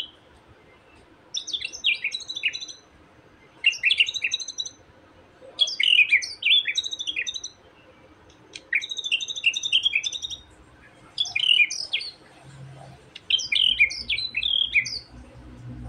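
A young wild white-rumped shama giving its taunting 'ejekan' song, the kind played to provoke a rival shama. It comes in six short bursts of rapid, sharply falling notes, a phrase about every two seconds.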